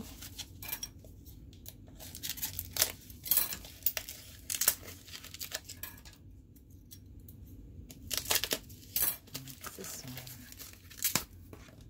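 Crinkling and tearing of the white packaging pouches around bottles of fountain pen ink as they are opened by hand, a run of irregular sharp rustles with a short lull a little past the middle.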